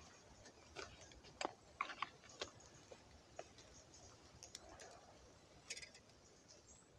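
Faint, scattered snaps and crackles of dry twigs as a small twig fire is fed with hand-broken kindling.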